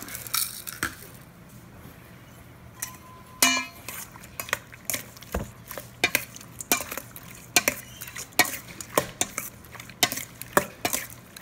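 Raw shrimp being mixed by hand with egg and spices in a stainless steel bowl: irregular wet squishing and sharp clicks against the metal bowl, starting about three seconds in and growing frequent.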